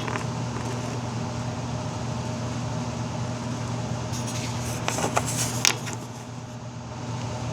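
Steady machine hum, like a running fan or blower, with a few light clicks and rattles of small parts being handled about four to six seconds in.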